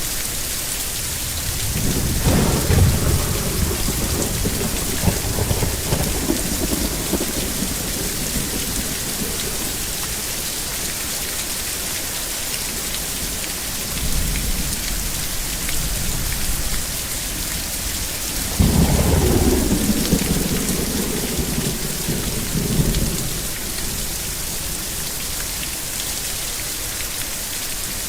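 Thunderstorm: steady heavy rain falling, with thunder rolling three times; the third roll, about two-thirds of the way through, is the loudest.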